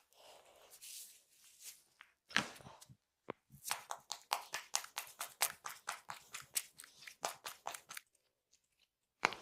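Hands working on a person during a massage: rubbing at first, then a fast, even run of sharp slaps, about four to five a second, as in a tapping or hacking massage stroke, with a single sharp hit near the end.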